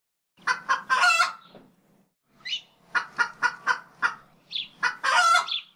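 Chicken clucking: runs of short clucks, about four a second in the middle, broken by longer drawn-out squawks about a second in and again near the end.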